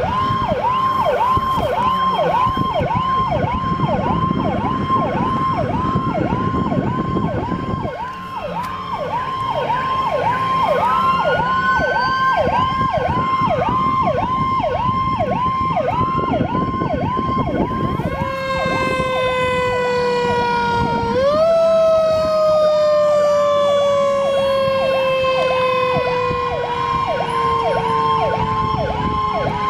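Fire truck sirens: one siren in a rapid yelp, several cycles a second, throughout, with a second siren's slower wail rising and falling over it. In the second half the wail falls slowly in long sweeps.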